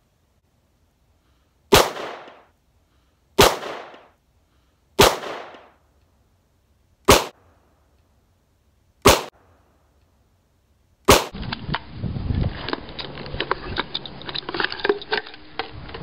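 Six single shots from a C96 'broomhandle' Mauser pistol in 7.63×25 mm, fired slowly about one and a half to two seconds apart, each trailing off in a short echo. They are followed by steady rustling with scattered small clicks.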